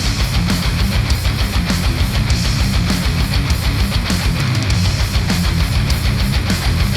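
Heavy rock music with electric guitar over a fast, steady drumbeat, played through Sennheiser open-back headphones and picked up by microphones at the earcup.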